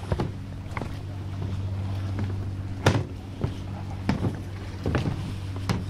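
A steady low mechanical hum, with irregular knocks and thuds over it; the sharpest knock comes about three seconds in.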